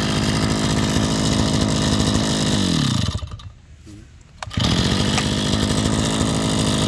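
Komatsu Zenoah BC3510 brush cutter's 35cc two-stroke engine idling steadily, then dying away with falling pitch as it is stopped about three seconds in. About a second and a half later it fires straight back up and idles again, showing how easily it starts.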